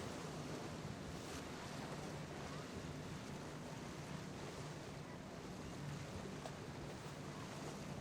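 Motorboat engines running with a steady low hum, mixed with waves and wind on the microphone.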